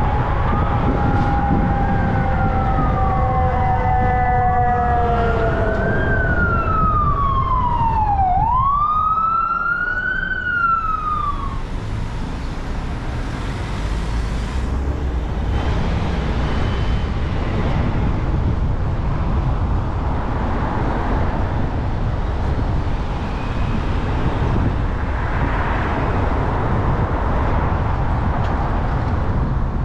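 An emergency vehicle siren wailing, its pitch rising and falling about every two seconds, then cutting off about 12 seconds in. Steady traffic and road rumble continue under it and after it.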